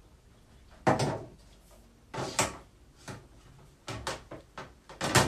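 Knocks and clatters of a cable storage box being handled on a desk, a string of separate sudden knocks with the loudest about a second in.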